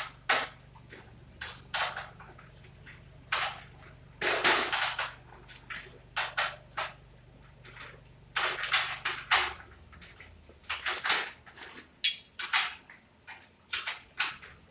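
Irregular knocks, clicks and metallic clatters, coming in small clusters every second or two, from garage door parts and hardware being handled and fitted.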